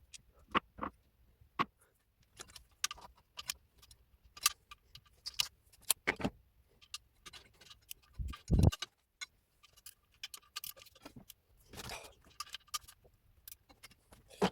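Metal hand tools and engine parts clinking and knocking irregularly during an engine teardown, some clinks ringing briefly. A heavier thud comes about eight seconds in.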